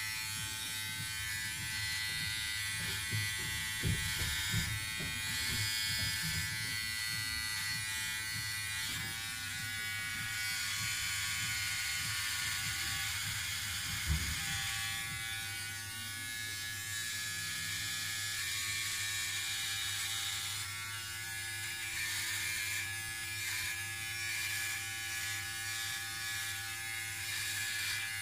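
Philips OneBlade electric trimmer buzzing steadily as it dry-shaves stubble along the neck, with no shaving gel. A few brief bumps about four seconds in and a sharper one about halfway through.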